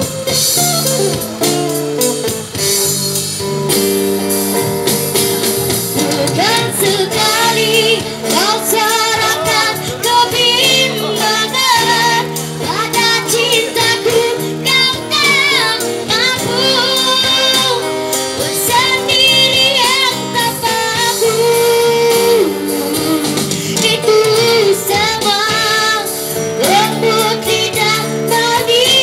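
A young girl singing through a microphone and PA speaker over a street band's amplified guitars and keyboard. The band plays alone at first; her voice comes in about six or seven seconds in.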